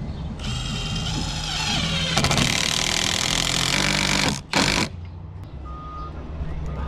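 Cordless impact driver driving a screw into pressure-treated lumber. The motor whines up for about two seconds, then hammers rapidly for about two seconds as the screw seats, followed by a short second burst. A low steady hum sits underneath.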